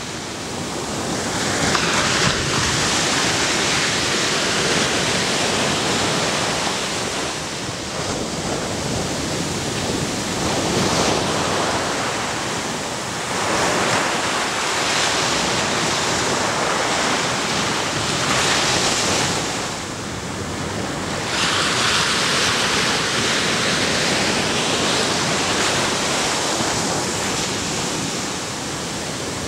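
Ocean surf breaking on a sandy beach, its rushing wash swelling and easing as one wave after another rolls in.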